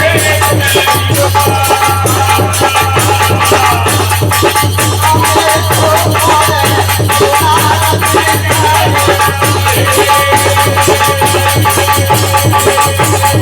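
Indian folk devotional music: rapid, dense rattling percussion over a wavering melody line and a steady low drone.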